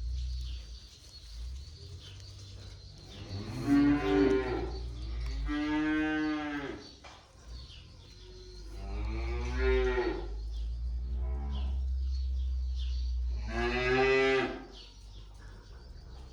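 Calves mooing: four long bawls a few seconds apart, each a loud drawn-out call, with a low rumble underneath.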